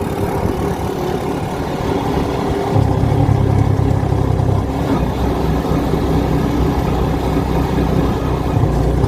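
Car engine running steadily, its low hum growing stronger about three seconds in.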